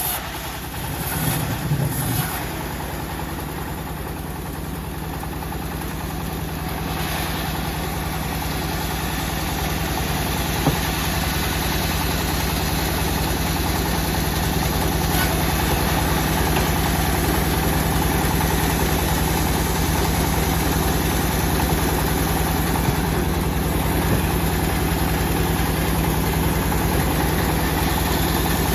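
Engine of a homemade bandsaw sawmill running steadily, getting gradually louder over the first dozen seconds and then holding even.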